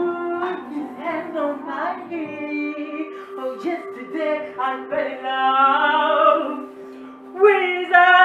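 A woman singing over a steady low drone, with a long held note that rises about five to six and a half seconds in and a louder sung phrase near the end.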